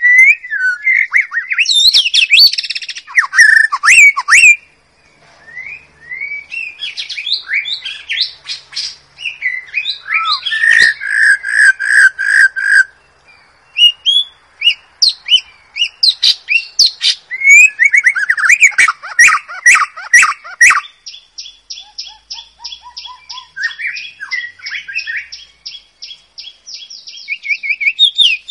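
White-rumped shama (murai batu) singing: loud, varied whistled phrases broken by short pauses and sharp clicks, ending in a fast, even run of repeated notes over the last several seconds.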